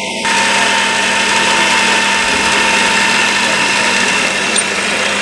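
Small benchtop metal lathe turning aluminium: the motor and spindle run with a steady hum, and the hiss of the tool cutting comes in just after the start.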